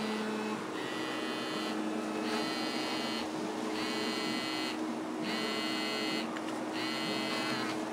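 Mobile phone ringing on a desk: an electronic ringtone about a second long, repeating roughly every second and a half, over a steady low hum.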